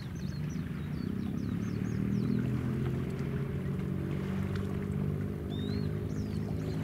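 A ship's engine running with a steady low drone that swells slightly in the first couple of seconds, while small birds chirp.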